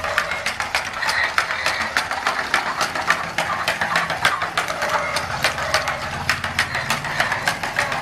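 Battery-operated walking toy donkey running: its small motor and gears hum while its plastic legs click rapidly and evenly as it walks.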